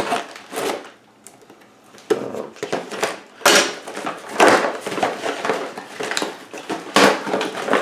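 A small cardboard box being slit open along its taped seam with scissors and its flaps pulled apart: cardboard scraping and the box's clear plastic wrap rustling in a string of short, uneven bursts.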